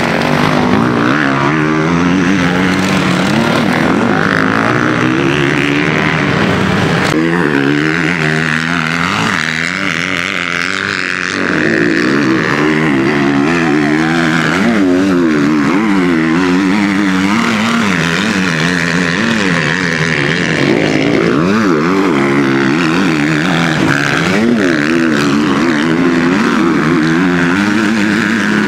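Several motocross bikes racing on a dirt track, their engines revving up and down repeatedly through the gears as they pass, with the loudness dipping briefly near the middle.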